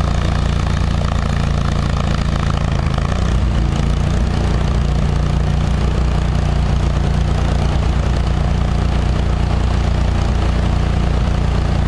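Small gasoline engine of a trailer-mounted hot-water pressure washing rig running steadily; its pitch shifts slightly about three seconds in and then holds.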